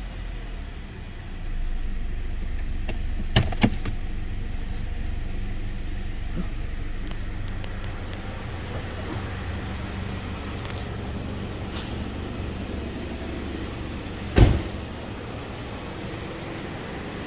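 2013 Dodge Dart's 2.0-litre four-cylinder engine idling steadily. Two quick clicks come about three and a half seconds in, and a single loud thump about fourteen seconds in.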